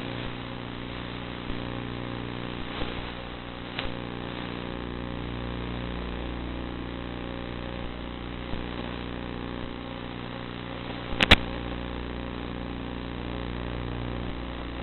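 Zagi flying wing's motor and propeller running at a steady throttle, a constant drone of several tones under a rushing hiss. A single sharp click about three-quarters of the way through.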